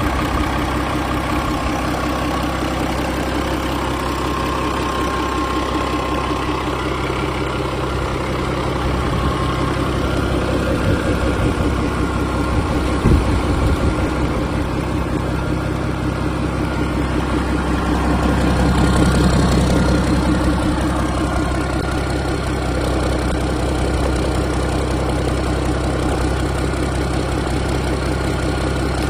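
Yanmar 6CHK-DT six-cylinder turbo marine diesel running at a steady idle, with a single sharp knock near the middle. About two-thirds of the way through it briefly runs up louder, then settles back to idle.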